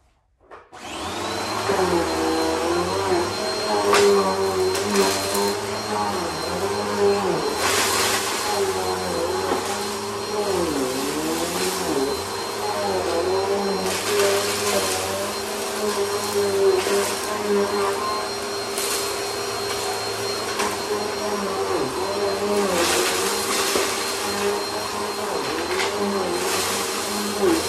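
Bissell upright vacuum switching on about a second in and spinning up, then running steadily with a high whine and motor hum. Its motor pitch dips briefly now and then, and repeated bursts of crackling rattle come as crushed food crumbs are sucked up.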